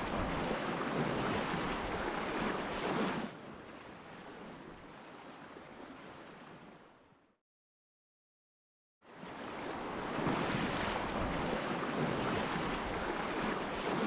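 Steady rush of flowing river water. It drops to a fainter hiss about three seconds in, fades out to silence, and comes back about two seconds later.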